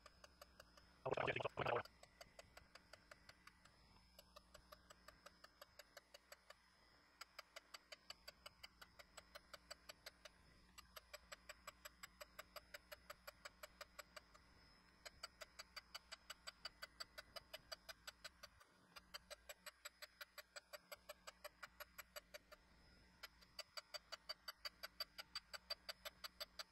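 Harig Super 612 surface grinder grinding the ends of a set of vise jaws clean, heard faintly as an even run of light ticks, a few each second, over a low steady hum. A brief louder clatter comes about a second in.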